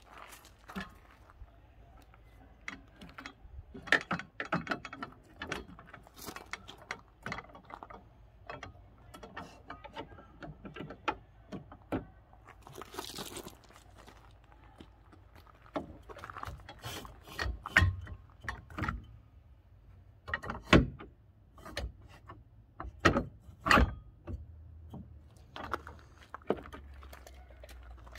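Scattered metal clicks, clunks and knocks as the steel brackets and roller of a camper cradle are handled and fitted onto a pickup's tailgate, with the loudest clunks in the second half and a brief hiss about halfway through.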